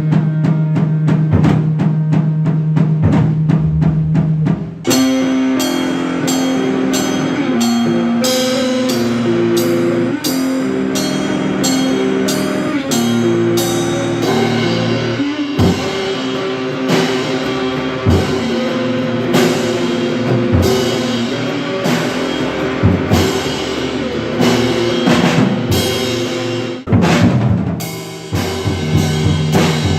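Beginner rock band playing: electric guitar, bass and drum kit, by players about a month into learning their instruments. About five seconds in the band moves from a held low riff over fast drumming into a fuller section with regular cymbal crashes, and near the end drops back into the opening riff.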